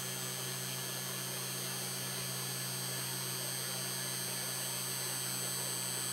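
Sainsmart Genmitsu PROVerXL 4030 V2 desktop CNC router running a program: a steady motor hum with a constant high whine as the Z axis lowers the spindle and bit toward the workpiece.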